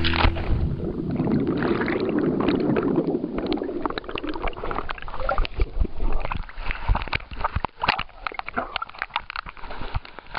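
River water splashing and sloshing right at the microphone as legs kick in it. A dense gurgling wash for the first few seconds breaks up into scattered sharp crackles and knocks, then grows fainter near the end.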